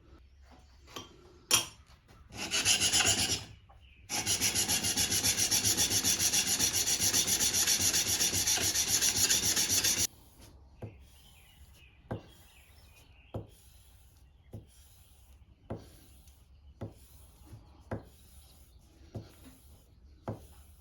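Steel cap iron of a wooden jack plane being scrubbed back and forth on a diamond sharpening stone to flatten the edge where it meets the iron. After a short stroke, it runs as about six seconds of fast, continuous scrubbing, then stops abruptly and gives way to lighter strokes with a tap about once a second.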